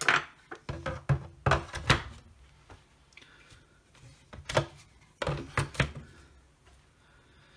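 Hard plastic knocks and clicks as an M18 lithium-ion battery pack is handled and slid onto the rails of a Milwaukee M18 six-bay charger, ending in a last cluster of knocks as it seats in the bay.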